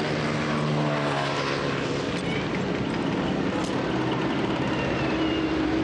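A motor vehicle engine running steadily, heard over a constant outdoor hiss.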